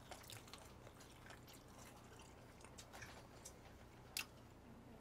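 Near silence, with faint scattered mouth and eating clicks and one sharper click about four seconds in as water is drunk from a large plastic bottle.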